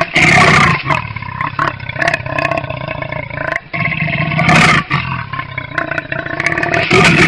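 Leopard growling continuously, with three louder snarls: about half a second in, around four and a half seconds, and near the end. It is aggressive growling at its own reflection in a mirror.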